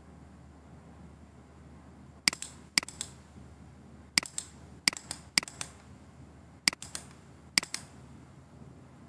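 Computer mouse button clicked seven times at uneven intervals, starting about two seconds in. Each click is a sharp press followed by a fainter release, over a low steady hum.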